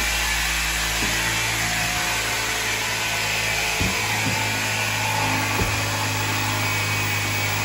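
A motor running steadily: an even whirring noise with a low hum, with a couple of faint knocks partway through.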